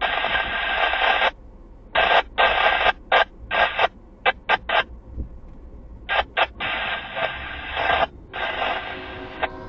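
Railroad radio scanner breaking squelch in bursts of static and unreadable transmission that cut on and off sharply: one long burst at the start, then a string of short choppy ones and two longer bursts near the end.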